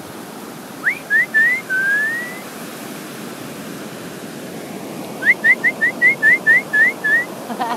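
A person whistling: three short rising notes and a longer upward glide about a second in, then a quick run of about ten short rising notes near the end. Steady surf hiss underneath.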